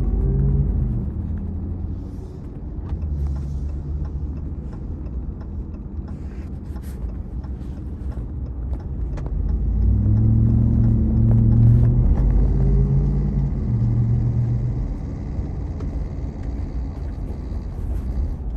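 Ram TRX's supercharged 6.2-litre V8 and road rumble while driving. The engine note gets louder and climbs a little about ten seconds in, then eases off again.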